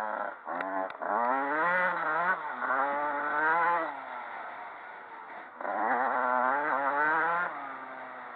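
Motocross dirt bike engine heard from on board, revving hard in repeated pulls that climb in pitch through the gears. It eases off about four seconds in and opens up again around six seconds, with a few sharp knocks in the first second.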